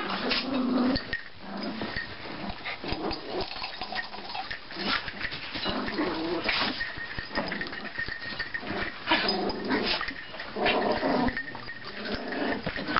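Several Chihuahuas play-fighting, giving repeated short growls and yips.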